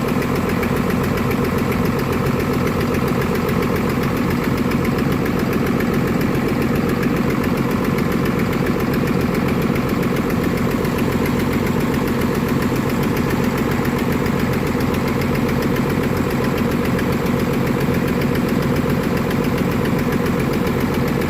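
Diesel engine of a Volvo excavator, a swapped-in Cummins, idling steadily.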